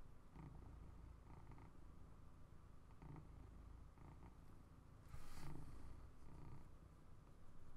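A cat purring faintly and steadily, in soft pulses about once a second. A brief rustle of card pieces being handled is the loudest moment, a little past five seconds in.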